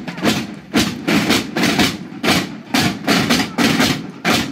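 Marching snare drums beating a march rhythm, with sharp rattling strokes about every half second.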